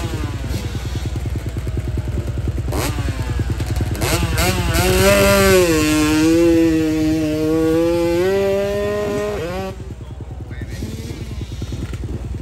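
125cc two-stroke dirt bike engine blipping at the start line, then revved hard and held high as the bike launches up the hillclimb, its pitch wavering for about five seconds before it cuts off suddenly; a low engine rumble carries on underneath.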